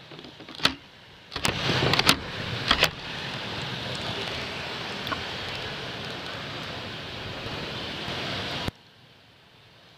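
Street traffic noise from passing vehicles, a jeepney and motorcycles among them. A few sharp knocks come about one to three seconds in. A steady traffic rumble follows and cuts off abruptly near the end.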